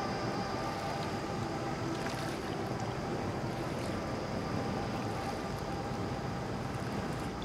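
Inflatable motorboat's outboard engine running steadily, a constant drone with a few held tones, mixed with wind and the sea.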